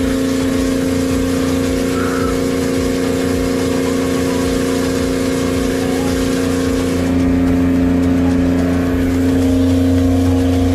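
Reverse-osmosis watermaker's electric boost pump and high-pressure pump running, a loud steady motor hum whose tone shifts about seven seconds in. The unit is up and running, already producing drinkable fresh water.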